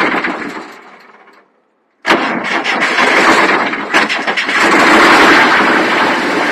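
Diesel engine of an АДД-4002 welding unit during a start attempt: the sound dies away over the first second and a half and stops. Just after two seconds it is started again, comes in suddenly and keeps running loud.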